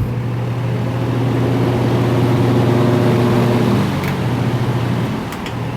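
Early-1960s General Electric 20-inch box fan running on its high speed: a steady rush of air over a low electric motor hum. The freshly oiled motor runs smoothly.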